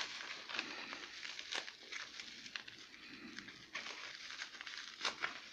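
Bubble wrap crinkling and crackling as it is pulled off a plastic figure, with a run of small sharp crackles throughout and a few louder snaps.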